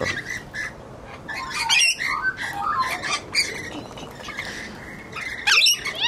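Rainbow lorikeet squawking: a run of short, shrill, scratchy calls and chatter, with the loudest burst shortly before the end.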